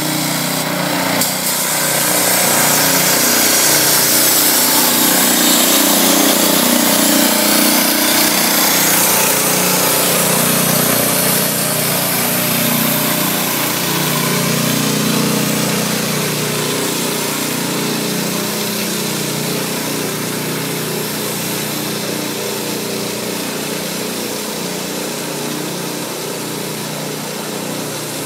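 MVS 75 ds road marking machine at work: its small engine runs steadily while the pneumatic gun sprays cold paint under pressure with a strong hiss. The sound slowly fades in the second half as the machine moves off.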